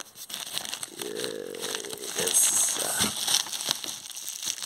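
Bubble wrap and plastic packaging crinkling and rustling as hands rummage through a cardboard box, loudest about halfway through. There is a brief hum about a second in.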